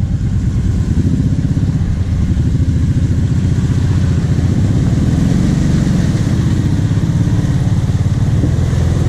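ATV engine running steadily, its pitch rising briefly about five seconds in.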